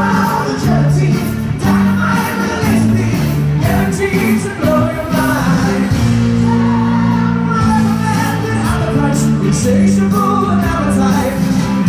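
Live glam-rock band playing with a male lead singer, recorded from the audience in a large arena.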